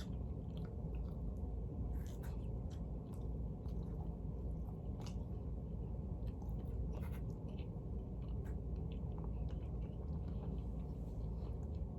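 A person chewing pizza close to the microphone: soft, scattered mouth clicks and chewing sounds over a steady low hum.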